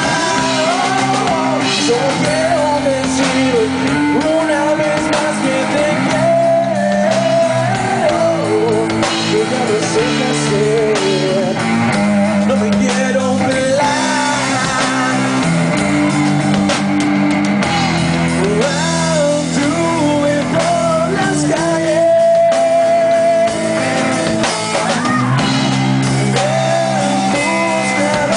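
Amateur rock band playing live: electric guitars and a drum kit, with a male voice singing the melody over them.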